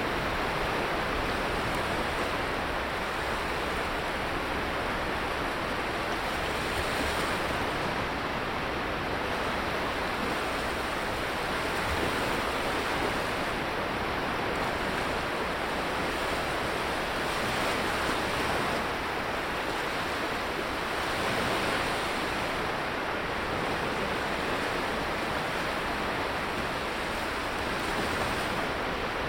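Sea waves breaking and washing up a sandy beach, a steady rush of surf that swells and eases every few seconds.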